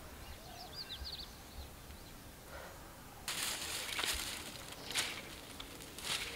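A few faint bird chirps, then from about three seconds in a campfire crackling: a steady hiss with sharp pops.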